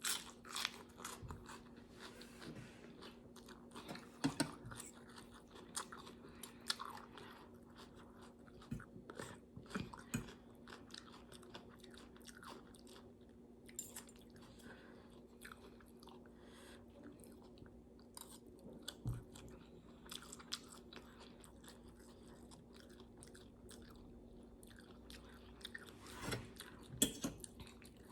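A person chewing and crunching food up close, with irregular short crunches and clicks, a louder cluster near the end, over a faint steady hum.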